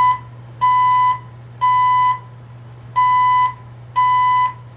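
Building fire alarm sounding its evacuation tone: a loud, steady, high beep about half a second long, repeating about once a second in groups of three with a short pause between groups. It means the fire alarm has been activated and the building is to be evacuated.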